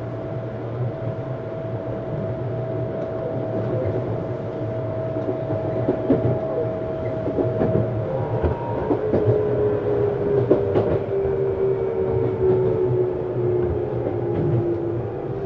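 Tokyu 7700 series electric train running, heard from inside the car: a steady inverter and traction-motor whine that changes about halfway through to a different, slowly falling whine as the train slows. Clicks from wheels over rail joints and a low running rumble sit underneath.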